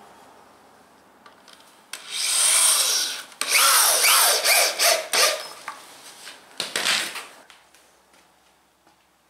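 Corded power drill boring into pressure-treated lumber in several spells: a short one about two seconds in, a longer one from about three and a half to five seconds, and a brief one near seven seconds. The motor's pitch slides down and back up as the bit loads and frees in the wood.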